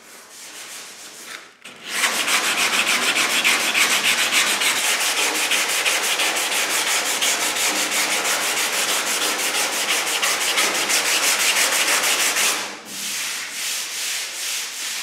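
Hand block sanding of cured Evercoat aluminum body filler with 100-grit paper on a DuraBlock, in fast, even back-and-forth strokes, leveling the filler. Quieter rubbing of a palm over the panel comes at the start and again near the end.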